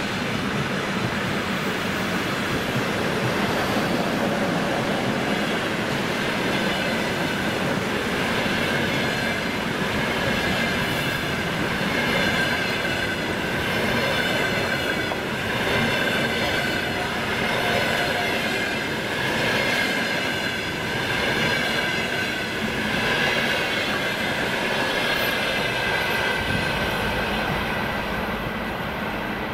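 EP20 electric locomotive and its double-deck passenger coaches passing close at speed: a steady heavy rumble of wheels on rail with a high ringing tone over it. The loudness swells and dips every couple of seconds as the coaches go by, easing slightly near the end as the tail of the train draws away.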